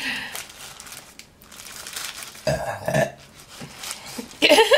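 A person burps once, about two and a half seconds in, while a paper burger wrapper crinkles in her hands; a short vocal sound follows near the end.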